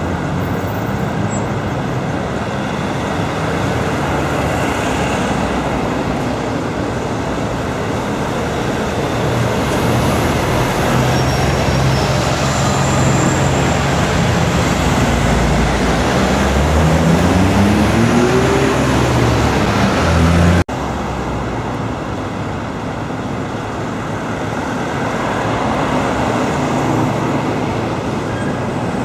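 Busy road traffic, with buses, a lorry and cars running past. Around the middle a heavy diesel engine close by accelerates, its note rising, and the sound then cuts abruptly to more passing traffic.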